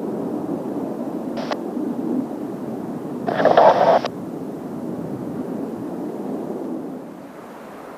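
Distant jet engine noise from Kawasaki T-4 display jets, a steady hiss that drops a little near the end. It is broken by two short bursts of hiss with sharp starts and stops: a brief one about one and a half seconds in, and a louder one lasting about a second a little past three seconds.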